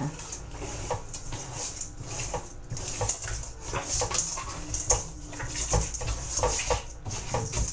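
Tap water running into a stainless steel bowl in a metal sink while hands scrub and squeeze a raw pork neck with coarse salt, with short wet squelches and knocks against the bowl.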